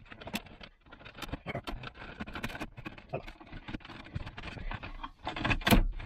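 Plastic trim of a Volvo V70's rear centre console being slid and pressed into place, its clips locking: a string of small clicks, knocks and rattles, with a louder knock near the end.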